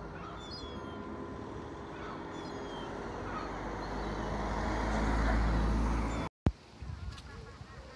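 A road vehicle passing close by, its low engine rumble growing steadily louder over a few seconds and then cutting off suddenly. Over a background of traffic hum, a few short falling bird calls come from the waterbirds on the river near the start.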